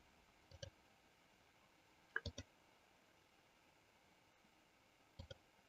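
A computer mouse clicking a few times against near silence: one click, a quick cluster of clicks about two seconds in, and a pair near the end.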